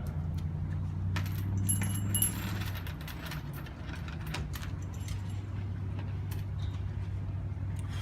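Metallic jingling and clinking from a Salvation Army ringer's handbell, with one clear ringing chime about two seconds in, over a steady low hum.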